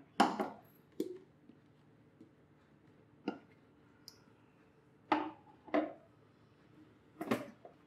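A handful of short clicks and knocks from a Zenith mixer-grinder's stainless steel jar and its lid being handled: the lid is fitted on and the jar is set onto the grinder base, with the horse gram inside. The knocks come singly, about a second or more apart.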